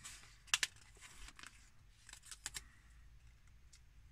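Planner stickers being handled and peeled from their paper sheet: faint paper rustling with a few sharp little ticks and crackles, a pair about half a second in and a quick cluster around two and a half seconds.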